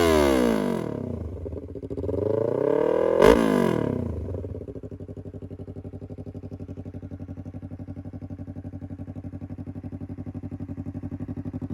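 Yamaha R3's 321 cc parallel-twin engine revved by hand: a rev falls away, then one more climbs to a peak with a sharp crack about three seconds in. It then drops back to a steady, pulsing idle.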